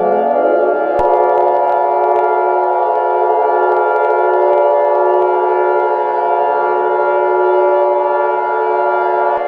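An alert siren sound that rises in pitch over the first second, then holds a steady chord of several sustained tones.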